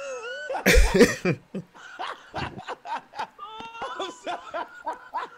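Several people laughing hard. There is a loud outburst about a second in and high-pitched laughter a little before the four-second mark.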